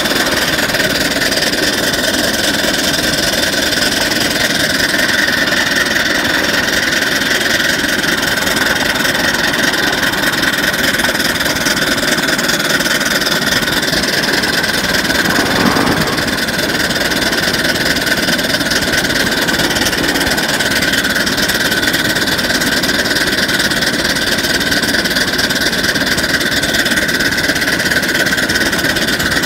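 Ride-on live-steam miniature locomotive running along its track, heard from the cab: a steady, loud mechanical clatter of steam exhaust and running gear, easing slightly for a moment near the middle.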